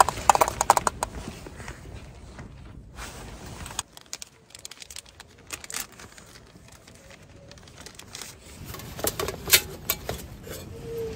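Stainless steel camping pots and lids clattering and clinking as the cook set is handled, sharpest in the first second and again near the end, with quieter rustling and small knocks between.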